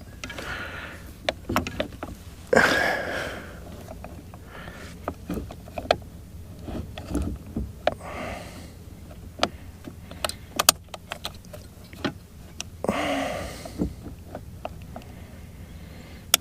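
Small parts of a Mercury boat remote control being handled and fitted: scattered clicks and light rattles, with two longer scraping or rustling sounds, about three seconds in and about thirteen seconds in.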